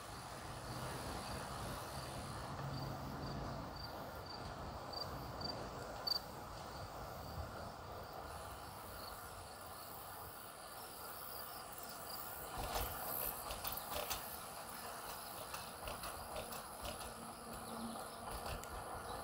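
A bicycle rolling along a trail, with a steady hum of tyre and air noise; an insect chirps about twice a second in a high, thin note for the first six seconds or so, then fades. A short run of sharp clicks and rattles comes a little past the middle.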